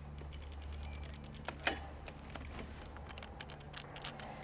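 Brompton folding bicycle being folded by hand: a quick run of ratchet-like ticks, then scattered light metal clicks as the rear wheel swings under the frame and the handlebar stem folds down, with one sharper click a little under two seconds in.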